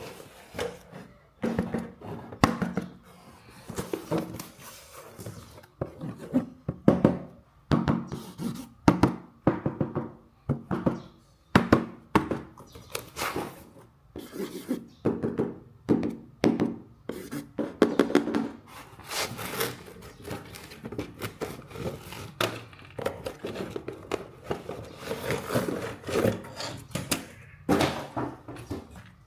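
RC car packaging being unboxed and handled: an irregular run of thunks, taps and rubbing, many sharp knocks a second at times.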